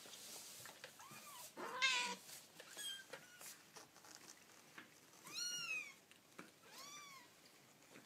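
Young kittens mewing: about five thin, high mews that rise and fall in pitch. The loudest come about two seconds in and a long one around five and a half seconds in, with a few soft clicks between them.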